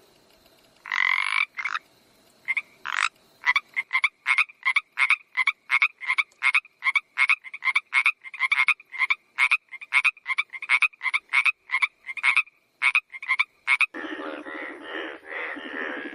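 Frog croaking: one call about a second in, then a long run of short, sharp croaks at about three a second. About two seconds before the end the croaks stop and a denser, lower, continuous call takes over.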